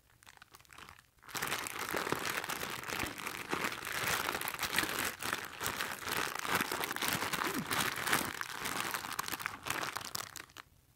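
Clear plastic bags around a pair of skateboard trucks crinkling and rustling as they are turned over in the hands, starting about a second in and stopping shortly before the end.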